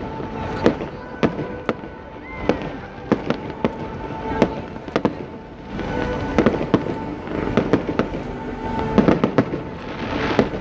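Aerial firework shells bursting in a rapid, irregular string of sharp bangs, with music playing underneath.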